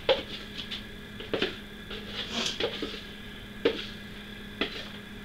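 Spoon clinking against dishes as cake batter is spooned into a pan: about five sharp clinks roughly a second apart, over a steady low hum.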